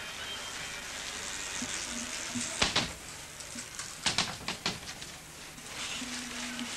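Steady hiss of an old videotape soundtrack with sharp crackling clicks, one cluster a little before the middle and another just after it, and a brief low hum near the end.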